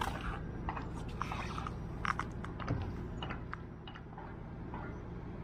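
Irregular small clicks and scrapes of a spinning rod and line being handled, thickest in the first three seconds and sparser after, over a low steady hum.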